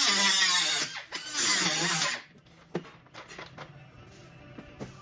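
Handheld power tool running in two bursts of about a second each, its motor pitch rising and falling, then stopping; a few light clicks follow.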